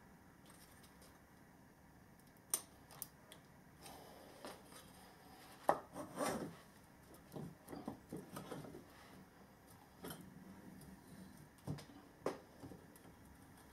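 Light clicks, knocks and short scrapes of metal motor parts being handled and worked into place during reassembly of an electric motor, with a cluster of rubbing and knocking in the middle.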